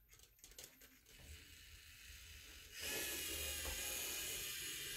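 LEGO EV3 robot's motors and gear train whirring steadily as it drives across the table, starting about three seconds in after a few faint clicks.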